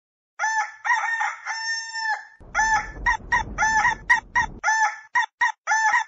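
Rooster ringtone: a chicken crowing and clucking in short, repeated calls, with one longer held call about two seconds in. A rough low noise runs under the calls through the middle.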